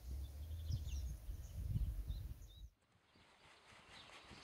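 Outdoor field sound: a low, uneven rumble with small birds chirping above it. About two and a half seconds in, the rumble cuts off abruptly, leaving faint birdsong over a quiet background.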